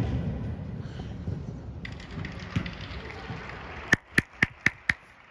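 A soccer ball thuds as it is struck on an indoor turf field, followed by the noisy echo of a large hall. Near the end come five short sharp pips in quick succession, about four a second.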